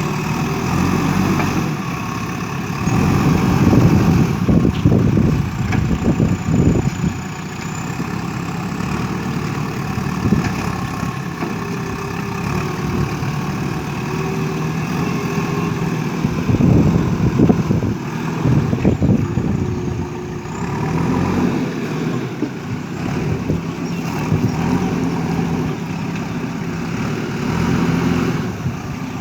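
Diesel engine of a JCB backhoe loader running, rising to louder, rougher spells twice as the machine works under load, then settling back.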